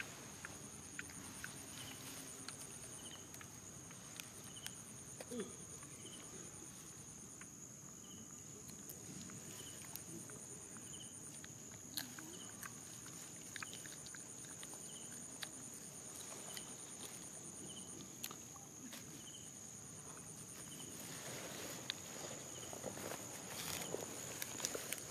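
Insects droning steadily on one high note, with a faint short chirp repeating about once a second. Soft rustles and clicks of macaques moving in grass, growing busier near the end.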